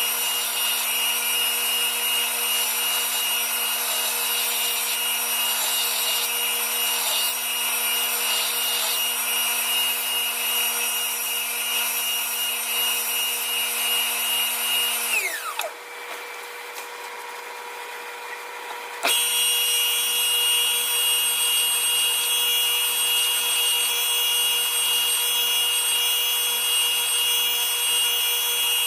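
Electric power tool running steadily, a motor hum with a rough grinding noise over it. About fifteen seconds in it is switched off and winds down with a falling whine, then starts up again abruptly about four seconds later and runs on.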